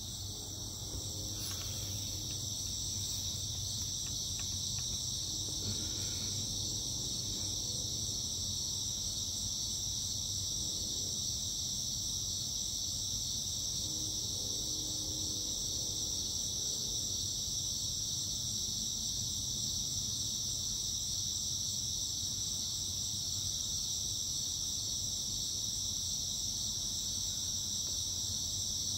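Steady, unbroken high-pitched chorus of night-singing insects such as crickets, with a faint low hum beneath it.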